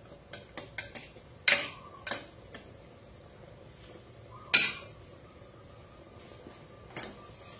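Metal spoon clinking and scraping against a clay pot while stirring fish. The clinks are irregular, with a cluster in the first couple of seconds and the loudest one about four and a half seconds in.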